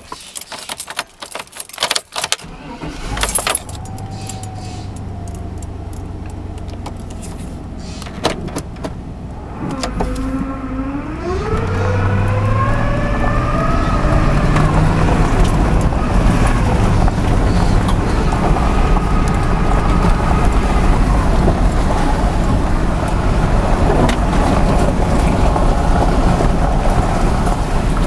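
1996 Chevy Tahoe driving with a transmission whine, described as really bad. The whine rises in pitch as the truck pulls away and gathers speed from about ten seconds in, then carries on over steady engine and road noise. A few clicks and rattles come at the very start.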